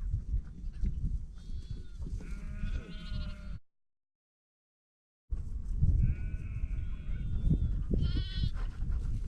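Sheep bleating, several wavering calls, over a low rumbling noise. The sound cuts out completely for a moment in the middle, then the bleating resumes.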